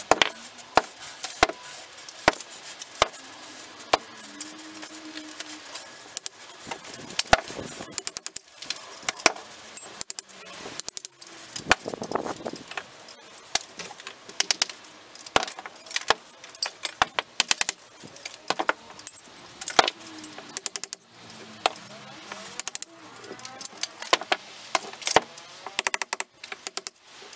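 Sharp, irregular metallic clinks and knocks of hand tools striking brick and mortar, with loose bricks knocking together, as a brick pillar is taken down by hand from the top.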